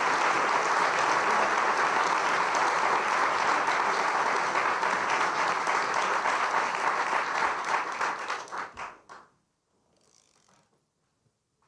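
Audience applauding as a performer comes on stage; the clapping thins into scattered single claps and dies away about nine seconds in, leaving near silence.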